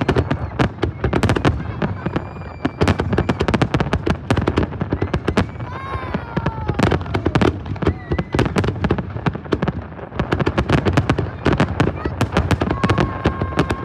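Large aerial fireworks display: a dense, continuous barrage of shell bursts and crackling bangs, many per second.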